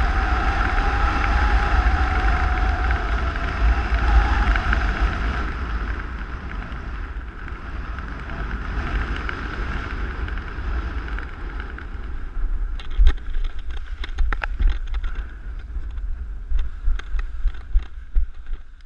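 Wind buffeting the camera microphone in a rumbling rush, with a whistling tone that fades about five seconds in. In the last few seconds, scattered clicks and knocks join the wind.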